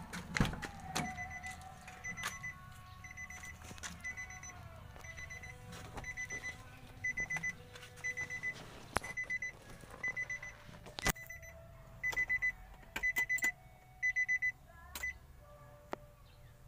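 A van's dashboard warning chime beeping in short, high bursts about once a second, the bursts growing longer and closer together near the end. A heavy knock comes about half a second in and a sharp knock about two-thirds of the way through.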